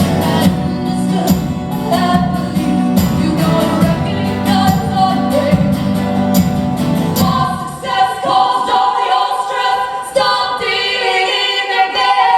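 Live music: guitar with sung vocal harmonies. About eight seconds in the low guitar part drops out, leaving only held sung notes.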